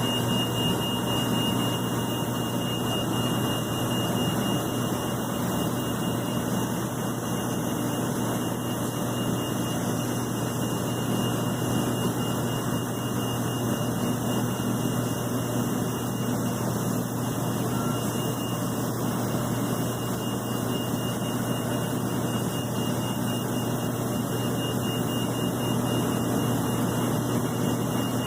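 Airbus A330 jet engines running steadily, with a low hum and a thin high whine that hold constant throughout.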